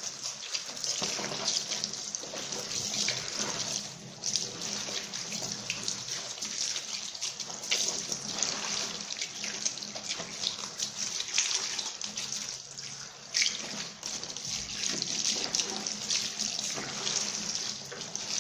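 A towel being hand-washed in a sink of soapy water: splashing and sloshing as it is scrubbed and squeezed, over water running from the tap.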